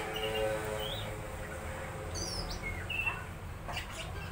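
Birds chirping in short, high notes and quick downward sweeps. A lower call with several stacked tones sounds in the first second, all over a steady low hum.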